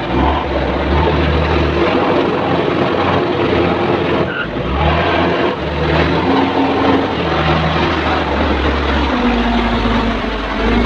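Diesel engine of a Komatsu WA350 wheel loader running hard under load, its pitch rising and falling as the machine carries a full bucket of gravel to a dump truck and lifts it.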